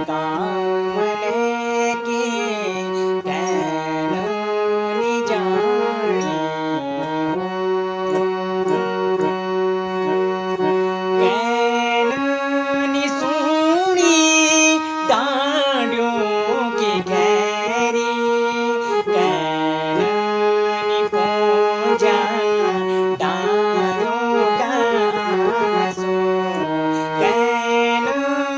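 Garhwali folk song: a man singing over a sustained reed-instrument accompaniment that moves in held, stepped notes.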